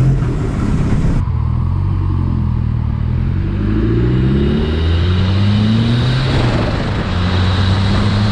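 Ford Sierra RS Cosworth's turbocharged four-cylinder engine pulling away and accelerating gently while still cold. Its pitch rises three times and drops back in between as it goes up through the gears.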